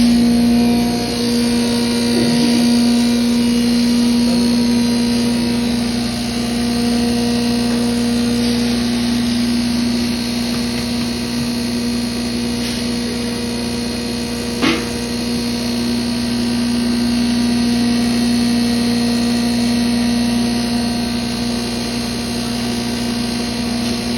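7.5 HP garam masala grinding machine with cyclone system running with a steady machine hum. A single sharp knock comes a little past halfway.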